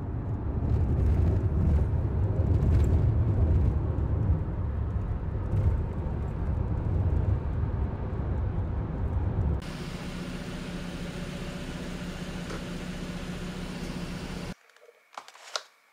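Road and engine noise inside a moving car's cabin, a steady low rumble. About ten seconds in it changes abruptly to a quieter, steadier drone with a low hum, which cuts off shortly before the end, leaving a few faint clicks.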